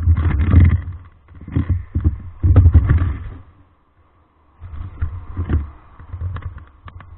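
Irregular low rumbling buffets on the camera's microphone, typical of wind or handling noise, strongest in the first three seconds, then a brief lull and weaker buffets, with a few light clicks near the end.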